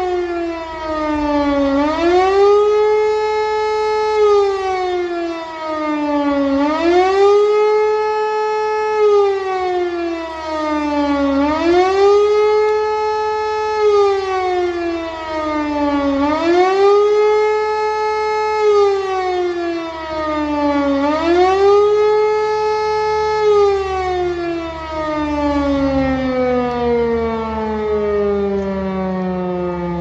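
Civil defence siren sounding the one-minute 'Warnung' signal, a rising and falling wail: the pitch climbs and falls about once every five seconds, then winds down in one long fall over the last several seconds as the signal ends.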